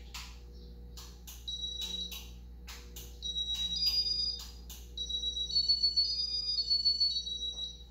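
Electronic beeping from a 1991 Casablanca ceiling fan's control running through its demo mode: sharp clicks with short high beeps in the first half, then longer runs of alternating high two-note tones from about five seconds in.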